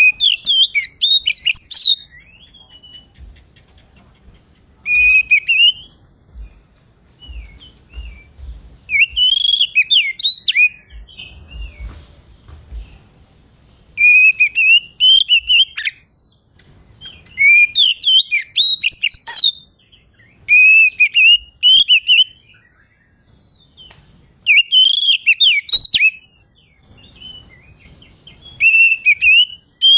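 Oriental magpie-robin (kacer) singing loudly in about eight separate bursts of fast, varied whistled phrases, with short quiet gaps between them.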